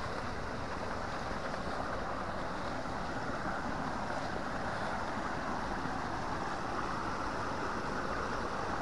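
Shallow, stony stream rushing over rocks and small cascades, a steady even rush of water.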